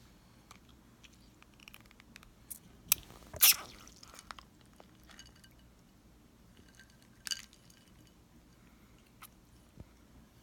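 Handling noises from a small plastic toy being squeezed and filled with water: scattered small clicks and squishes, with a louder click about three and a half seconds in and another about seven seconds in.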